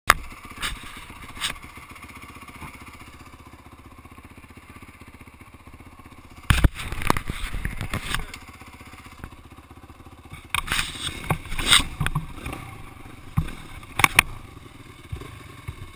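Dirt bike engines idling steadily, with loud knocks and scraping rubs close to the microphone in two bursts and a few single knocks.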